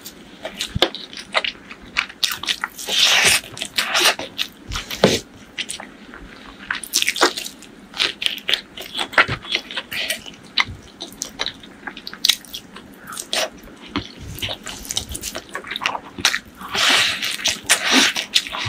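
Close-miked eating sounds of a person eating rice and saucy meat by hand: wet chewing and biting with many sharp mouth clicks and some crunchy bites, louder in a few clusters.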